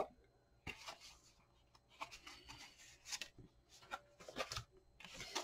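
Faint rustling and light taps of thick paper journal cards being handled and moved one by one, in short irregular scrapes with a few sharper ticks.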